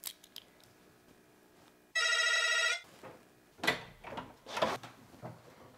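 An electric doorbell buzzer sounds once, a steady buzz of just under a second about two seconds in. A door handle is then turned with a few clicks and knocks.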